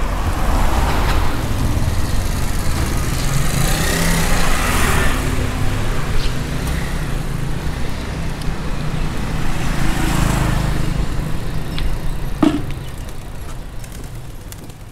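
Road noise from riding along a town street: a steady low rumble and wind, swelling several times as traffic passes, with one short sharp sound about twelve seconds in before everything fades out.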